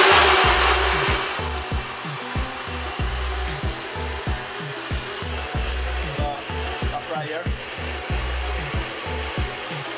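Countertop blender running at full speed, fading down over the first couple of seconds and then continuing more quietly under background music with a steady beat.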